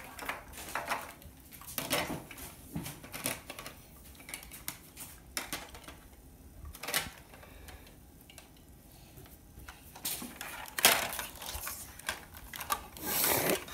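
Kitchen utensils clinking and scraping against a bowl or dish in irregular knocks and taps, the loudest about eleven seconds in.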